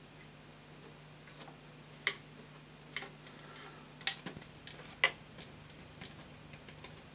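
Sharp clicks and taps from a 3D-printed plastic model locomotive chassis, fitted with metal wheels and connecting rods, being handled and turned over: four louder clicks about a second apart with fainter ticks between.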